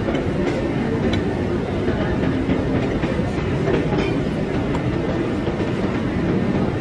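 Steady din of a busy restaurant, with a murmur of crowd chatter and a few light clicks of a fork against a plate.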